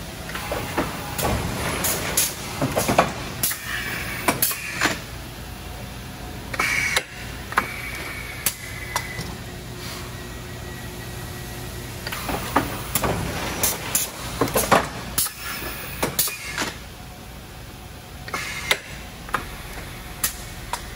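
Thermoforming machine running: a steady low hum with irregular clanks and knocks and a few short hisses of air.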